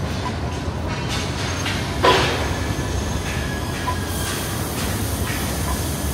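A train or tram running, with a steady low rumble and a short, louder squeal or scrape of wheels about two seconds in.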